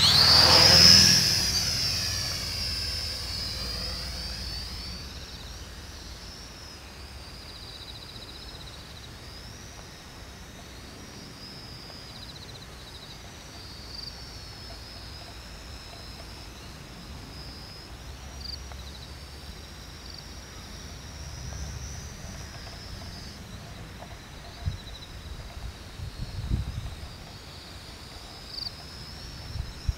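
The electric motors and propellers of a small X400 quadcopter drone whine as it lifts off close by. The sound is loud at first, then fades over a few seconds as it climbs away. It settles into a steady high whine that rises and falls slightly with the throttle, with a few low thumps near the end.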